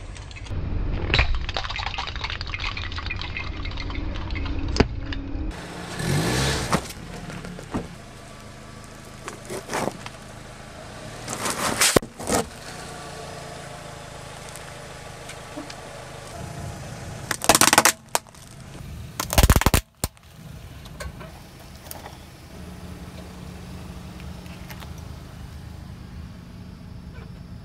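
Car tyre rolling slowly over small objects on asphalt and crushing them, with the car's engine running, in several separate takes. Several sudden loud cracks and crunches as things break under the tyre, the loudest two about two-thirds of the way through.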